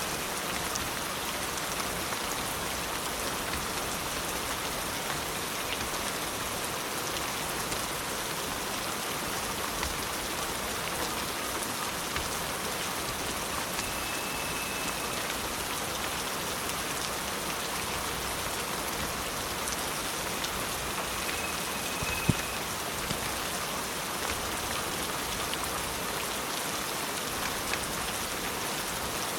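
Steady rain falling on a surface, an even hiss of many drops. One sharp knock stands out about three-quarters of the way through.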